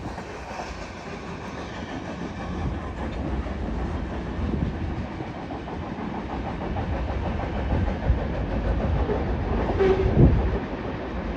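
A BNSF manifest freight train running away down the track just after its last car has passed: steady low rumble and wheel clatter on the rails, with a short sharp sound about ten seconds in.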